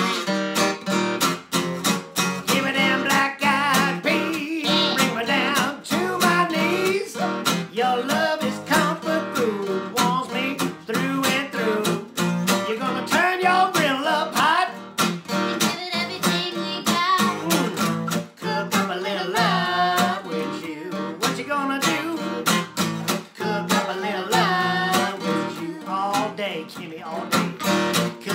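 Gibson acoustic guitar strummed in a rhythm and blues song, with a man singing over it.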